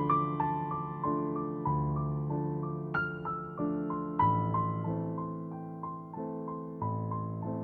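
Background piano music: a gentle melody of single notes over slow-changing bass notes.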